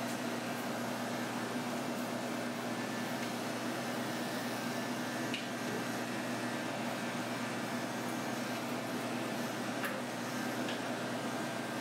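Electric dog grooming clippers running with a steady hum as the blade shaves through a matted coat, with a few faint ticks.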